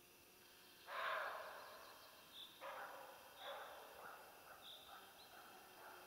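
Roe deer buck giving its alarm bark: a loud bark about a second in, two more over the next two and a half seconds, then a run of fainter ones as it bolts.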